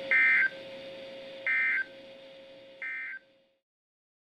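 Emergency Alert System end-of-message (EOM) data bursts: three short, loud bursts of two-tone digital data about 1.3 seconds apart, each a little quieter than the last, marking the end of the alert message. A steady low hum runs beneath them, and everything cuts off suddenly just after the third burst.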